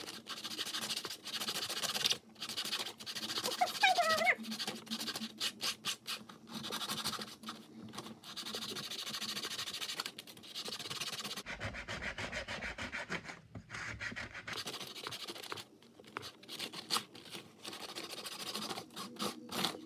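Sandpaper rubbed by hand over a sheet of paper, a rasping scratch in quick back-and-forth strokes with a few short pauses, the paper being worn away into dust.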